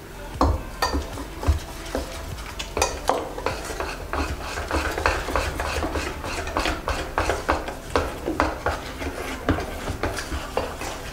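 Metal utensils stirring and beating cake batter in a stainless steel pot and bowl: quick, uneven clinks and scrapes of metal on metal, at times about three or four a second.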